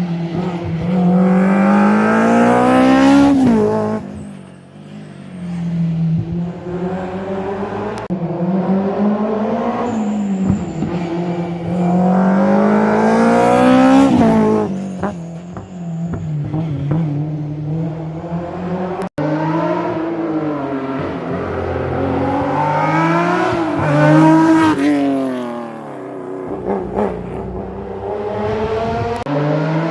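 Rally cars at racing speed, engines revving hard up through the gears and falling away as they pass one after another. The pitch climbs and peaks several times. There is an abrupt break about two-thirds of the way through.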